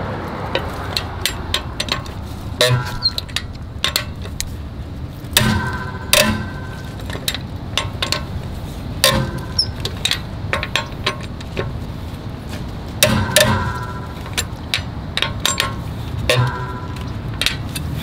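Wrench and socket clicking and clanking on the wheel bolts as they are loosened. A run of light ticks is broken every few seconds by a louder clank that rings briefly.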